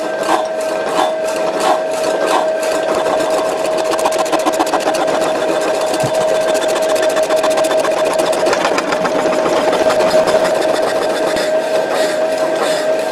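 Power hacksaw cutting a scrap metal bar under coolant: the blade rasps through the metal in regular strokes, about one and a half a second, over a steady whine from the drive.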